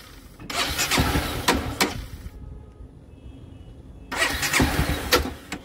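Honda CBR250R's electric starter cranking its single-cylinder engine in two bursts of about a second and a half each, with a strange noise from the engine. The engine turns over but does not catch: a no-start that the owner ties to the bike standing out in heavy rain.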